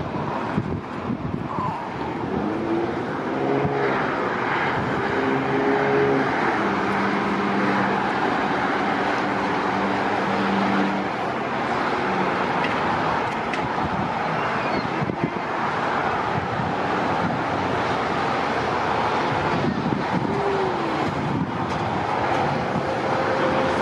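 Steady roar of jet airliner noise from a Fiji Airways Airbus A350-900 that has just landed, mixed with road traffic, with a few engine hums rising and falling in it.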